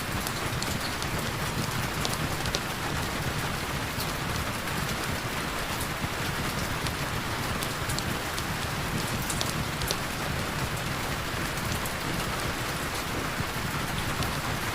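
Heavy rain falling steadily: a dense even hiss with many sharp ticks of single drops and a low rumble underneath.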